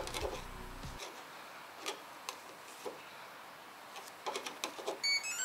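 Plastic key card tapping and scraping against the card reader on a capsule pod's moulded plastic door: a few light clicks spread out, then a quick cluster of knocks. Near the end a short run of electronic beeps comes from the reader as it takes the card and the door unlocks.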